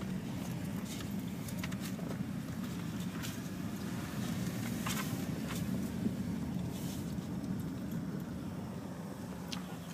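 Steady low rumble of a car driving slowly, heard from inside the cabin, with a few light clicks scattered through it.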